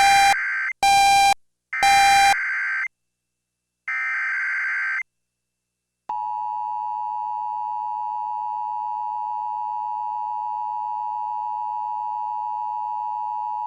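NOAA Weather Radio Emergency Alert System tornado warning opening. Three roughly one-second bursts of the SAME digital header sound as a harsh screech, and loud beeps come about once a second over the first two. About six seconds in, the steady 1050 Hz warning alarm tone starts and holds for about eight seconds.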